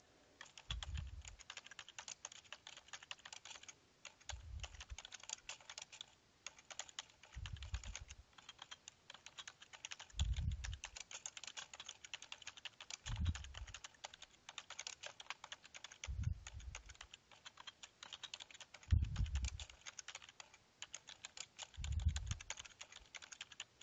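Typing on a computer keyboard: rapid, uneven keystroke clicks, with a dull low thump about every three seconds.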